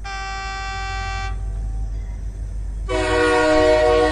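Train horn sounding from a train that is not yet in sight: one blast that stops after about a second and a half, then a louder, longer multi-tone blast starting about three seconds in. A low steady rumble runs underneath.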